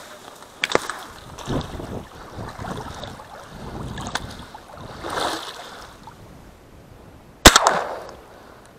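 Water splashing and sloshing as a small boat is paddled across shallow water, with a few light knocks. About seven and a half seconds in comes one loud shotgun shot with a short echo, fired to finish off a wounded duck.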